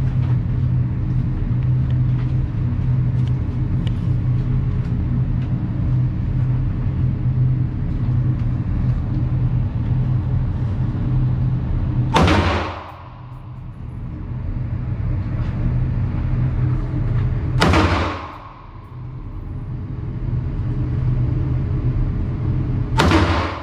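Three single shots from a Ruger AR-556 MPR 5.56 mm AR-15 rifle, about five and a half seconds apart, each a sharp crack with a short ringing tail in an indoor range. A steady low hum runs underneath and drops away briefly after each shot.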